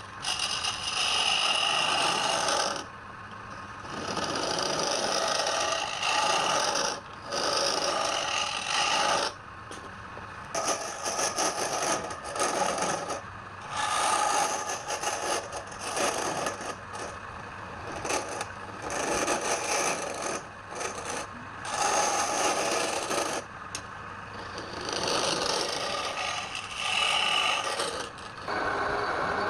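Wood being scraped by an abrasive hand tool in repeated strokes, each lasting a second or two, with short pauses between them.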